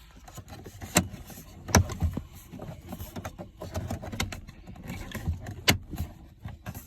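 Dash trim kit being handled and fitted around a car radio: several sharp clicks and knocks amid scattered handling noise.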